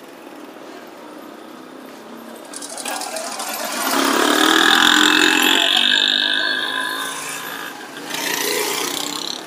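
A motor vehicle passing close by: its engine noise swells to a peak about halfway through and then fades, over a background of street bustle.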